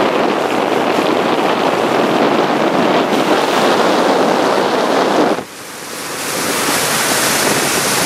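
Wind buffeting the microphone and water rushing and splashing past the hull of a moving boat on choppy water. The rush dips sharply about five seconds in, then builds back up with more hiss.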